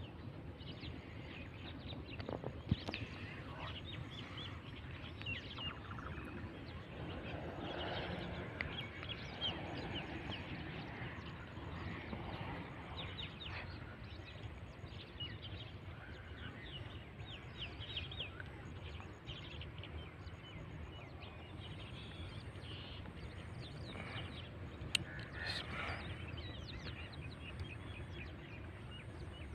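Many small birds chirping and calling over a steady low outdoor background noise, with a single sharp knock about three seconds in.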